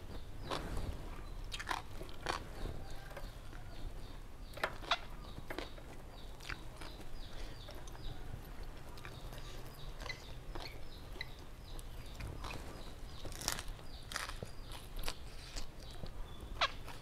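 Close-miked eating: chewing with irregular crisp crunches and mouth clicks as papaya salad and raw yardlong beans are bitten and chewed.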